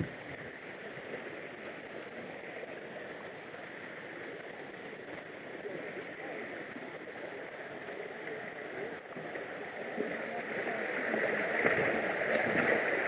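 Small stream rushing over rocks, a steady rush of water that grows louder near the end.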